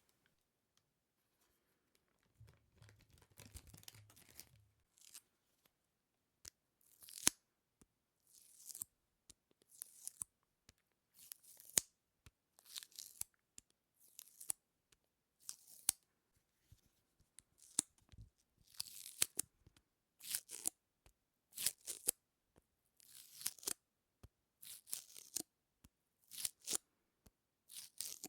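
A sticky surface peeled apart over and over, close to the microphone: a short crackling peel about every one and a half seconds, with small clicks between.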